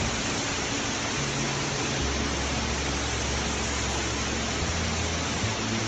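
Steady roar of rushing floodwater, an even hiss with no breaks. Under it is a low hum that starts about a second in and steps down in pitch about two seconds in, then shifts again near the end.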